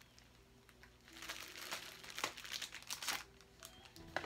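Clear plastic packaging bag crinkling as it is handled, starting about a second in and dying down near the end.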